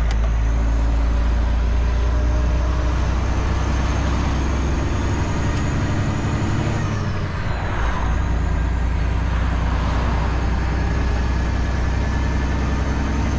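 Semi truck's diesel engine running steadily under way, heard from inside the cab: a strong low drone with a faint high whine that drops in pitch, and a brief dip in the drone a little past halfway.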